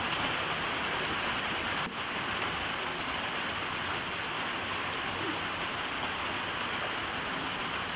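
Steady hissing noise with no words or music, with a faint click about two seconds in.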